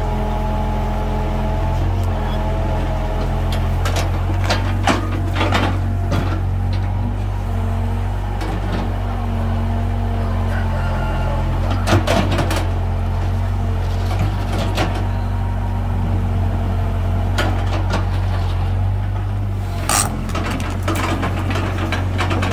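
Small tracked excavator's diesel engine running steadily under load while the bucket digs and pushes soil, with a few sharp knocks and clanks from the bucket and arm.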